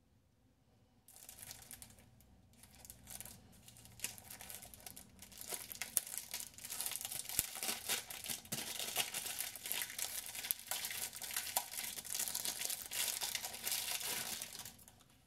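Clear cellophane wrapping being torn and crumpled off a cardboard harmonica box, a dense crinkling crackle full of small sharp snaps. It starts about a second in, grows louder midway and stops abruptly near the end.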